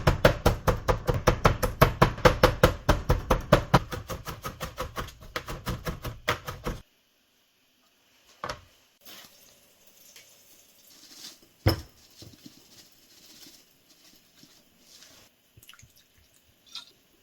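Kitchen knife chopping rapidly on a cutting board, about five or six even strokes a second, stopping abruptly about seven seconds in. Then scattered small kitchen clicks, with one sharp knock a little after the middle.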